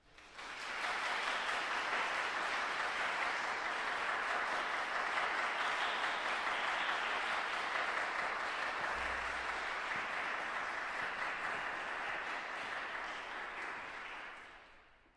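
Audience applauding: steady clapping that starts abruptly and dies away near the end.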